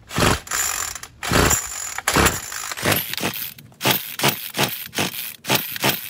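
Recoil pull-starter of a Troy-Bilt string trimmer yanked several times: three hard pulls, then quicker, shorter strokes, with the engine never firing. It will not start even with starting fluid in the air intake, which the owner takes as a sign of blocked carburettor passages.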